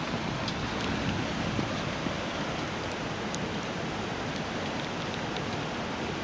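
Steady rain falling, with scattered sharp ticks of drops striking close to the microphone.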